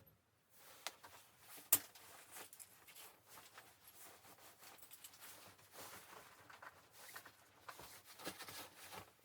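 Quiet rustling and handling noises with many small, irregular clicks and knocks. One sharp click comes nearly two seconds in.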